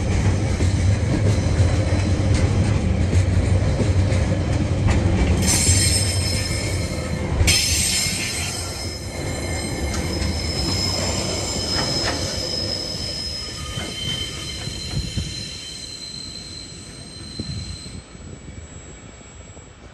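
Container freight train wagons rolling past at close range, wheels rumbling on the rails. About five or six seconds in, a high-pitched wheel squeal sets in and lasts several seconds. The sound then fades as the train draws away.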